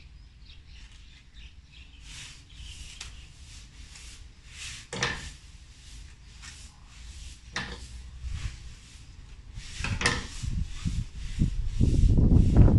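Fresh green coconut leaflets rustling and crackling as they are woven and tucked by hand into a hat brim, with a few sharper crackles. Near the end a loud low rumble comes in.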